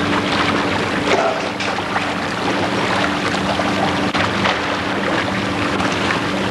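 Water churning and sloshing as a killer whale swims fast through its pool, under wind buffeting the microphone, with a steady low hum underneath.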